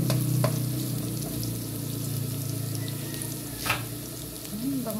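Chopped garlic sizzling and crackling in hot oil in a nonstick frying pan as it fries toward golden brown, stirred with a spatula. A few sharp taps of the spatula on the pan, the loudest near the end.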